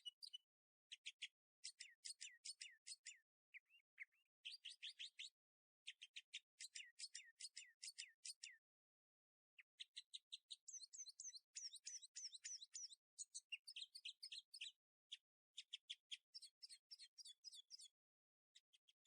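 Faint songbird song: runs of rapid, high chirps and trills, broken by a few short pauses.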